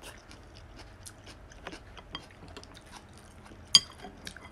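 Close-up chewing and small wet mouth clicks of a person eating noodle soup, with one sharp, ringing clink near the end.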